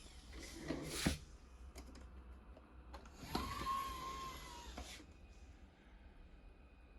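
Roidmi Eva robot vacuum and its auto-empty dock: a sharp click about a second in, then a short whir with a steady tone lasting about a second and a half.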